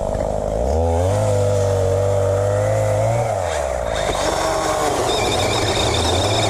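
Chainsaw engine running, revving up about a second in, holding there for a couple of seconds, then dropping back to a lower, steady run.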